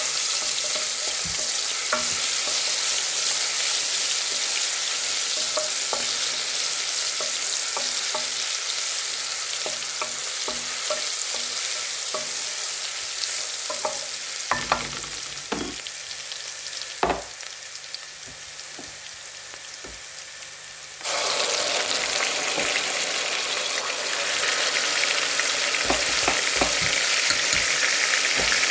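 Food frying in a pan: a steady sizzle, with a utensil clicking and scraping against the pan as it is stirred. The sizzle slowly fades, then turns suddenly louder about two-thirds of the way through.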